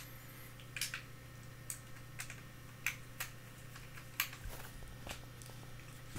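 Light clicks and taps of small metal parts and a hand tool against a GSG-522 .22 rifle being taken apart, about seven scattered clicks over several seconds.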